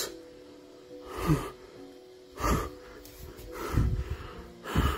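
A frightened person gasping and breathing hard in four loud, ragged breaths about a second apart, over a low, steady droning music bed.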